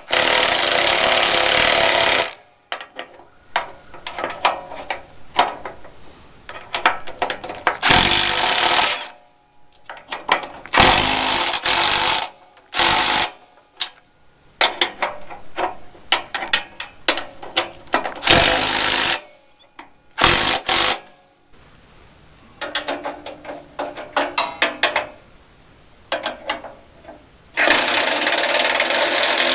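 Impact wrench hammering bolts home in bursts of one to two seconds, about six times, with clicks and metal clinks of hand tools and hardware between the bursts.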